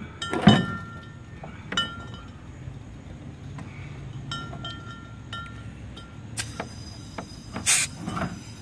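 Metal clinks and taps on the steel fire-extinguisher tank of a home-made air cannon as its fittings are handled, several ringing briefly. Near the end come two short bursts of compressed-air hiss as air is put into the tank.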